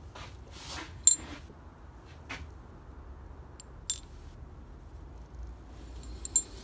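Small steel ball bearings clinking against the metal of a Briggs & Stratton recoil starter's ratchet clutch as they are slid into its groove. There are two sharp metallic clinks with a brief high ring, about a second in and near four seconds, and a few fainter clicks.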